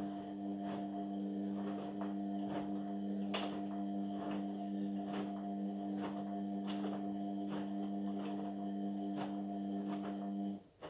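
Indesit washing machine humming steadily, with light clicks about twice a second. The hum cuts in abruptly and cuts off abruptly about ten and a half seconds later.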